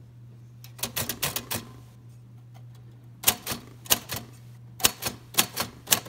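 Keys of a 1953 Royal Quiet De Luxe manual typewriter struck one at a time, each typebar hitting the platen with a sharp clack. There is a quick cluster of strikes about a second in, then a slower, uneven series through the second half, over a steady low hum.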